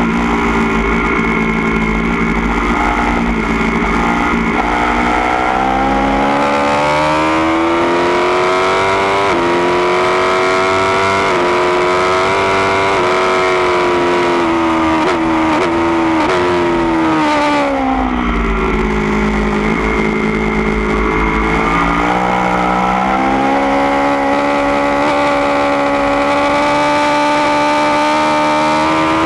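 2016 Aprilia Tuono V4 1100 Factory's V4 engine at full track pace through a baffled Austin Racing GP1R exhaust, heard from the rider's seat. The revs climb through the gears with short steps at each upshift, drop sharply on braking and downshifts a little past halfway, then climb again.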